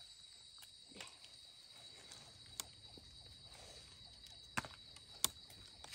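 Faint handling sounds: a small knife trimming the dirty base of a wild mushroom's stem and dry leaf litter crackling, with a few sharp clicks, the loudest two near the end. A steady high insect drone sits underneath.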